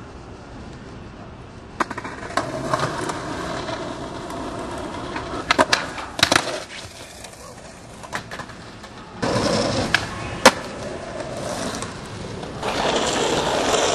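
Skateboard wheels rolling on pavement, with sharp clacks of the board popping and striking a metal flat rail around six seconds in, and more single sharp board snaps about two and ten seconds in.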